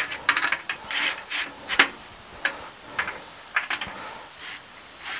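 Cordless drill/driver tightening the burner's mounting screws in a sheet-metal smoker firebox, in a series of short bursts.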